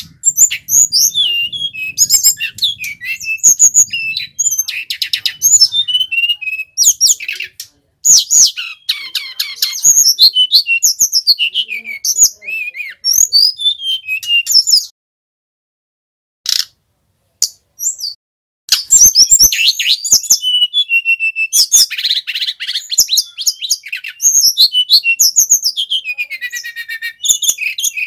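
Male brown-chested jungle flycatcher (sikatan rimba dada coklat) singing a loud, rapid song of high, varied chirps and trilled phrases in bursts, breaking off briefly a little past the middle before going on again.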